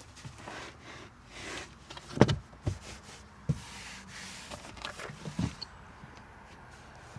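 Handling sounds from a car interior: a few dull knocks and thumps, the loudest just over two seconds in, with soft whooshing rustles between them.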